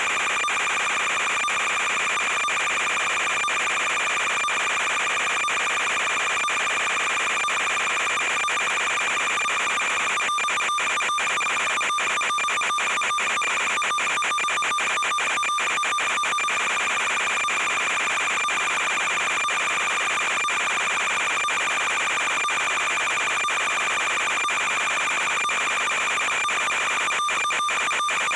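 Steady high-pitched electronic buzz over hiss, its pitch unchanging, broken by many brief dropouts. This is noise on the audio channel of an analog FPV video downlink, not the quadcopter's motors.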